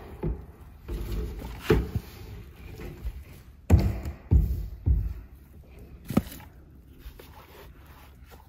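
A few dull, irregular thumps and knocks as a man leans on and handles a large hollow black plastic water tank at its open top hatch.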